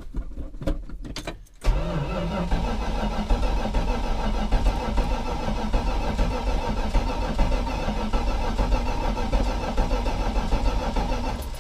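A few clicks, then the 1984 Dodge Ram's starter cranking the engine steadily for about nine seconds without it catching, and stopping near the end. The owner takes the no-start for fuel starvation: the engine is struggling to get fuel.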